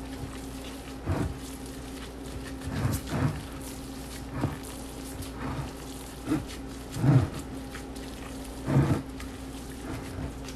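Plastic-gloved hands kneading and squeezing ground meat mixed with bread in a glass bowl: short irregular squishes about once a second, over a steady low hum.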